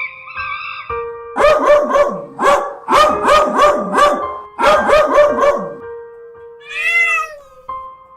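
A cat making three quick runs of short, sharp cries, then one longer rising-and-falling meow near the end, over background music with held tones.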